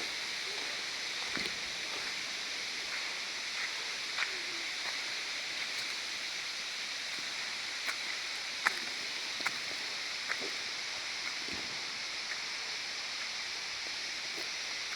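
Steady hiss of water falling at a waterfall, with scattered light clicks and taps, the sharpest a little past halfway.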